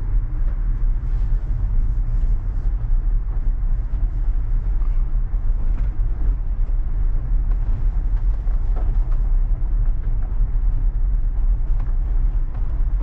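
Tyres of a Tesla Model 3 rolling over a dirt road, heard inside the cabin as a steady low rumble, with no engine sound from the electric car and a few faint ticks.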